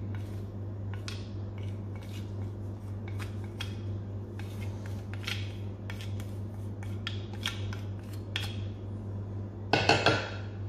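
A spoon tapping and scraping spices off a divided serving tray onto chicken and vegetables in a bowl: a run of light, irregular clicks, with a louder clatter near the end. A steady low hum runs underneath.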